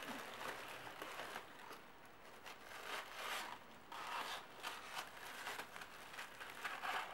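Tissue paper rustling and crinkling on and off as hands unwrap it from a small potted cactus.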